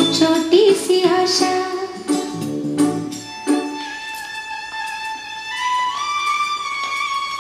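Hindi film song playing: a voice singing over a beat for the first few seconds, then an instrumental melody of long held notes that step up and then back down.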